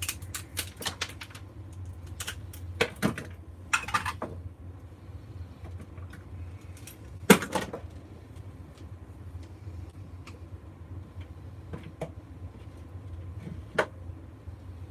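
Metal hand tools and scrap ballast parts handled on a wooden workbench: scattered clicks and clatter, with the sharpest knock about seven seconds in, over a steady low hum.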